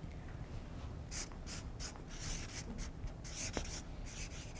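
Marker writing on a flip-chart pad: a quick run of short scratchy strokes, starting about a second in.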